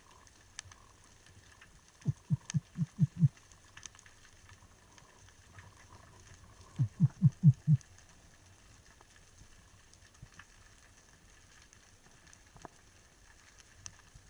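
Underwater recording: two short trains of about five low, rapid pulses, each pulse dropping in pitch, about 2 seconds in and again near the middle, over scattered faint clicks.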